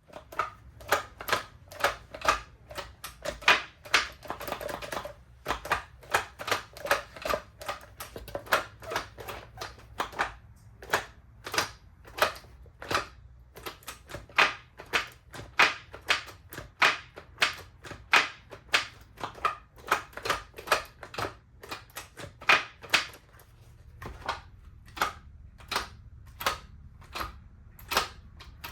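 A long series of sharp clicks and taps, roughly two a second and unevenly spaced, over a faint low hum.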